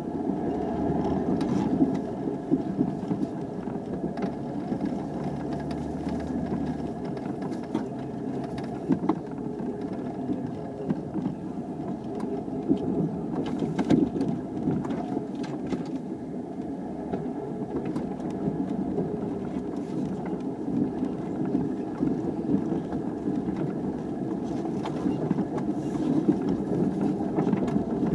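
A 4x4's engine and drivetrain running at low speed over a rough dirt trail, heard from inside the cab as a steady rumble. Short knocks and rattles come now and then as the vehicle goes over bumps.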